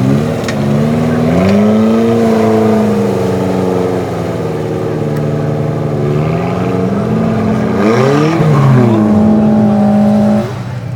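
V8 engine of an off-road Jeep running under load, its pitch rising and falling as the throttle is worked, with a quick rev up and back down about eight seconds in. The engine sound drops away sharply near the end.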